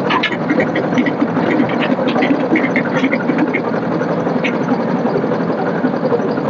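Tractor diesel engine running steadily at idle, with a scatter of short high ticks over the first three and a half seconds and one more a second later.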